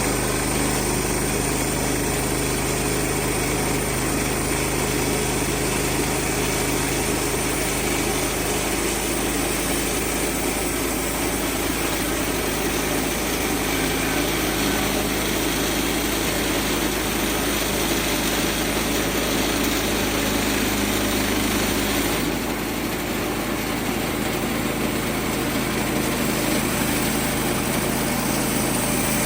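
The Kohler gas engine of a Woodland Mills HM130 Max portable band sawmill running steadily at speed. Its tone shifts and it drops slightly in level about 22 seconds in.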